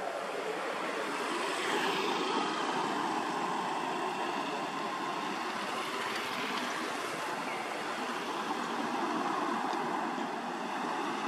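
Steady rushing outdoor background noise with no distinct events, a little louder after the first second or so.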